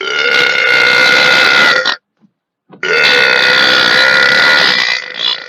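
A man belching twice: two long, loud burps of about two seconds each, with a short pause between them.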